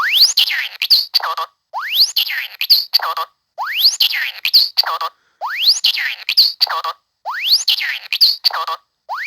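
Cartoon sound effect repeating about every two seconds: a fast rising slide-whistle glide, a rattle with a falling whistle, then a short pitched note, with silent gaps between repeats.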